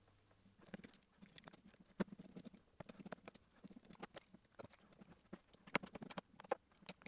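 A utility knife blade scraping and picking at the foil seals over the screw holes on a hard disk's casing. It makes faint, irregular scratches and small clicks, starting about a second in.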